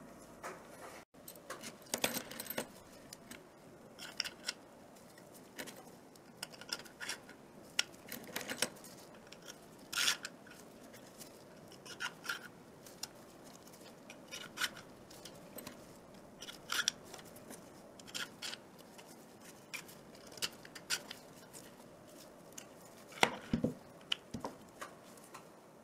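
Handling noise from assembling a small compressor: steel rods and cylinder sleeves being fitted into a 3D-printed plastic block, with scattered clicks, taps and light scraping. The loudest cluster of clicks comes near the end.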